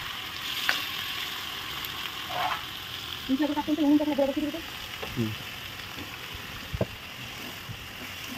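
Diced potato and papaya sizzling as they fry in a metal wok, stirred with a metal spatula that now and then clicks against the pan. A brief voice-like pitched sound about three seconds in is the loudest moment.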